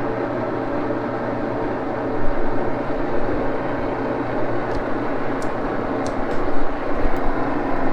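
Geared lathe running steadily with a droning hum, with a few light metallic clicks about halfway through.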